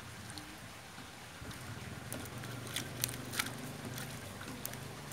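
A low, steady motor hum that grows a little stronger after about a second and a half, with a few short clicks and taps scattered over it.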